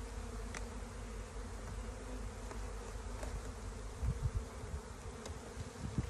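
Honeybees from a populous colony buzzing around an open hive: a steady, even hum of many wings, with a few low bumps about four seconds in.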